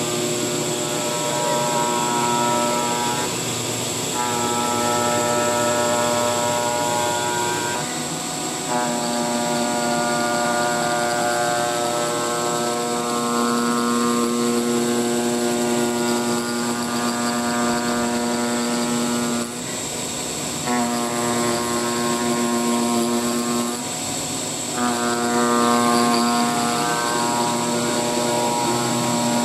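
Flatbed CNC digital cutter cutting gasket sheet: a steady buzzing hum over a constant high whine. The hum breaks off for about a second four times, then resumes.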